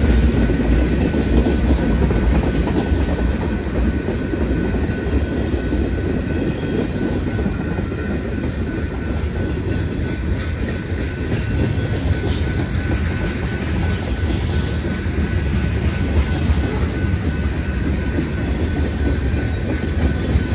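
Freight cars rolling past on steel rails: a steady rumble of wheels and car bodies with clickety-clack, a few faint steady high tones and occasional sharp clicks.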